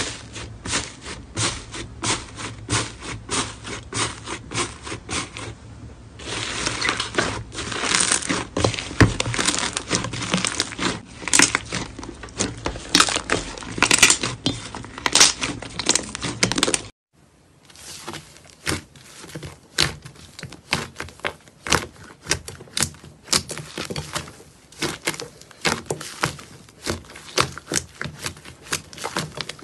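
Hands pressing and squishing thick slime in a bowl, giving dense crackling and popping made of many small crisp clicks. The crackle grows denser about six seconds in and changes suddenly about seventeen seconds in as another slime takes over.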